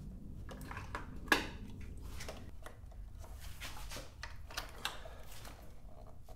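Wiring harness and plastic connectors rustling and clicking against each other and the frame as the bundle is forced through a tight gap. One sharp click about a second in is the loudest sound.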